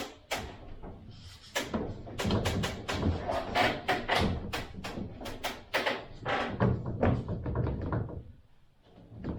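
A rapid, irregular run of knocks and clacks as PVC soffit panels are pushed and tapped into place overhead, easing off near the end.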